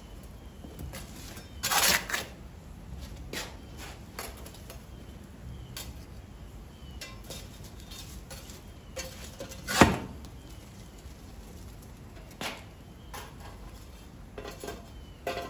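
Iron fire shovel scraping on the hearth floor and knocking as embers are scooped and heaped around a clay pipkin: a string of scrapes and clinks, the sharpest knock about ten seconds in.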